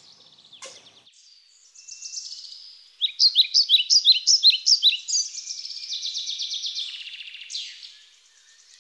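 Songbirds singing: a run of quick, high chirps at about four a second, then a trill and a single falling whistle near the end.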